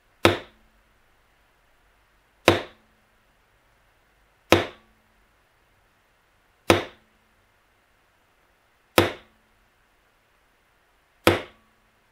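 Mallet striking a leather beveling tool, six sharp single taps evenly spaced about two seconds apart, each with a brief low ring. The beveler is being stepped along the cut lines of wet tooling leather, one tap per step.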